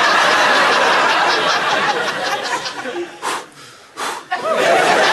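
Studio audience laughing, dying down about three seconds in, then a second wave of laughter near the end.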